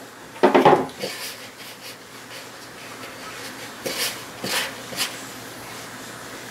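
Hand-mixing pizza dough in a bowl: faint soft handling with a few light taps and knocks, mostly around four to five seconds in. About half a second in there is a short breath or vocal sound.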